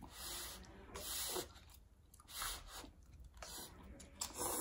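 Someone eating instant cup noodles: about five short, faint hissing slurps with chewing, roughly a second apart.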